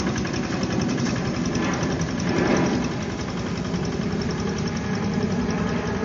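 Two-wheel hand tractor's single-cylinder diesel engine running steadily with a fast, even firing beat as it plows a flooded rice paddy.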